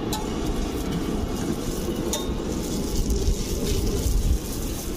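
Steady low rumble of road traffic, with two sharp metallic clinks, one just after the start and one about two seconds in.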